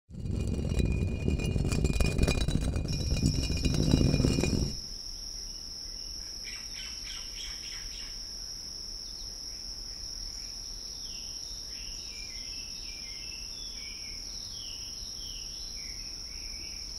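Jungle ambience: a steady high insect drone with birds calling in short downward-sliding notes, the calls coming thicker in the second half. It is preceded by a loud, low rushing noise that stops abruptly about five seconds in.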